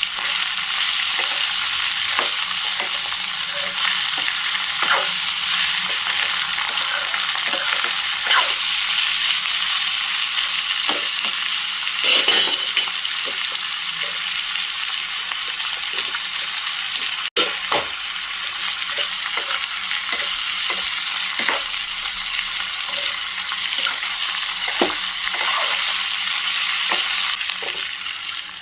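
Bitter gourd (karela) frying in hot oil in a pan, sizzling steadily, with a spatula stirring and knocking against the pan now and then. The sizzle briefly cuts out about halfway through.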